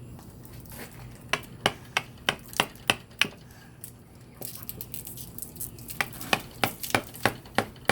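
Small toy hammer tapping at a Treasure X dig block to break it apart. It makes a run of sharp taps about three a second, pauses for a couple of seconds mid-way, then starts tapping again.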